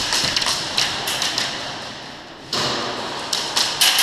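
Scattered sharp snaps and taps of airsoft fire, BBs striking the arena's walls, coming thicker from about two and a half seconds in.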